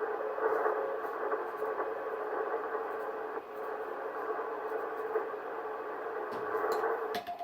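Shortwave receiver audio on the HF Morse band: steady band hiss through a narrow CW filter, with a faint tone of a signal on the tuned frequency. A few sharp clicks come near the end.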